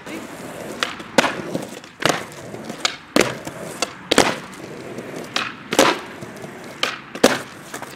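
Skateboard with soft wheels rolling on street pavement, broken by about nine sharp wooden clacks of the deck being popped, landing and knocking about as tricks are tried.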